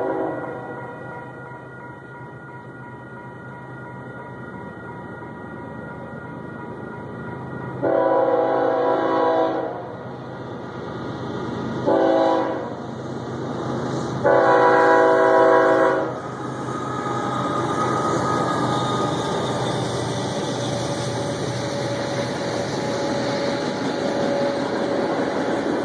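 Union Pacific freight locomotive's horn sounding the grade-crossing warning: the tail of one long blast, then a long, a short and a long blast between about eight and sixteen seconds in. After that the locomotives pass and the freight cars roll by with a steady rumble and wheel clatter.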